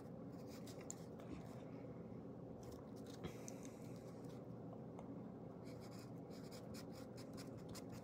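Faint scratching of a pen writing on paper in short, irregular strokes, over a steady low room hum.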